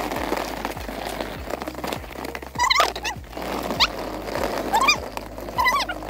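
Background music with a steady beat about twice a second. In the second half, four sliding, whistle-like melodic phrases come about once a second and are the loudest sounds.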